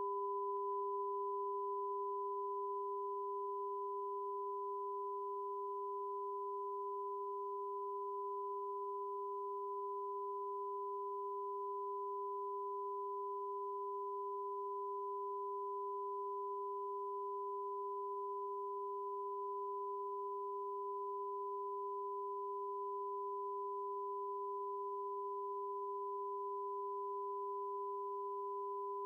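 Television test-card tone: a steady, unbroken test signal of pure tones, a lower one and a higher one sounding together, broadcast with the test card during a technical test transmission.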